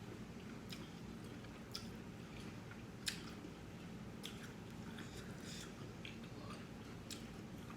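Person chewing lobster tail meat close to the microphone: faint, scattered wet mouth smacks and small clicks, with one sharper click about three seconds in.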